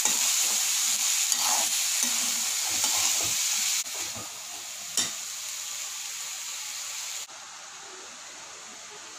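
Chickpeas sizzling as they fry in a pan, with a spoon scraping and clicking through them while they are stirred. The sizzle drops suddenly quieter a little before halfway, gives a single sharp click about five seconds in, and drops again near the end.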